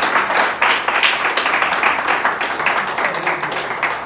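Audience applauding: many hands clapping at once in a dense, loud patter.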